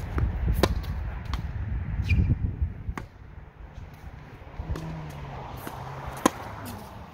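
Tennis balls struck by rackets in a rally: sharp pops roughly every three seconds, the loudest near the end, with fainter ball bounces between them. A low rumble fills the first few seconds.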